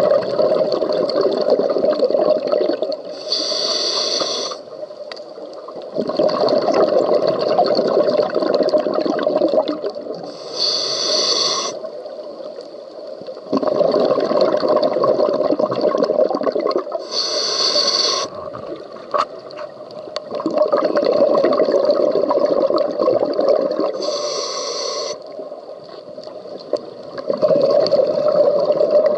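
Scuba diver breathing through a regulator underwater: slow, regular breaths, each a short hiss of inhalation through the regulator followed by a longer, louder rumble of exhaled bubbles, about seven seconds per breath.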